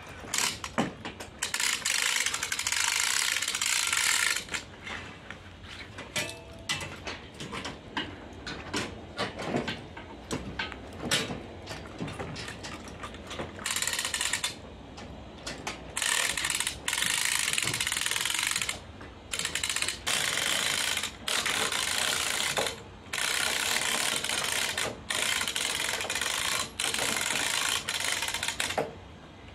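Ratchet strap being cranked in repeated strokes, each a run of rapid clicking, as it draws a steamed oak plank tight around a bending jig.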